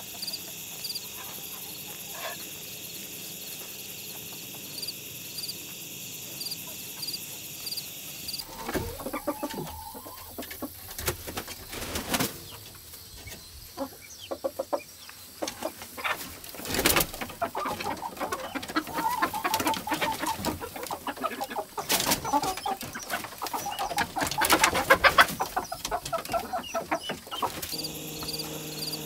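Chickens clucking and calling, with a few sharp knocks among the calls. For the first third only a steady, evenly pulsing high-pitched background is heard.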